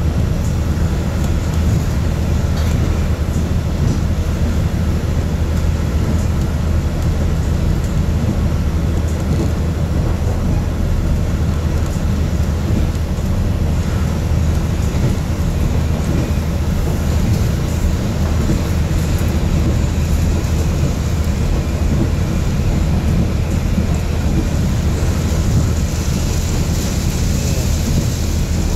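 Steady low drone inside the cabin of a KiHa 48 diesel railcar under way: the underfloor diesel engine and the wheels on the rails, an even rumble with no breaks.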